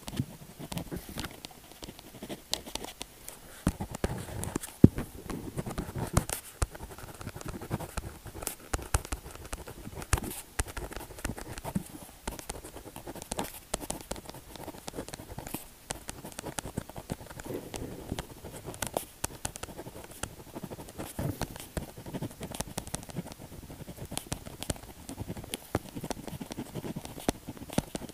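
Pen tip scratching and tapping on paper, heard up close, in many quick, irregular strokes and clicks.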